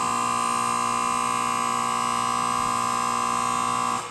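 Station platform's electronic departure bell ringing steadily as the train is about to leave, then cutting off suddenly about four seconds in.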